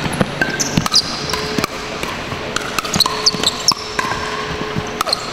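Pickleball paddles striking a hard plastic ball in a rally: a quick, irregular series of sharp pops that echo in a large hall. Short sneaker squeaks on the hardwood court come between the hits.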